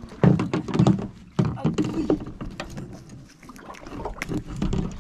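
Scattered clicks and knocks of a caught fish and its hook being handled by gloved hands, with short bursts of people talking in the first two seconds.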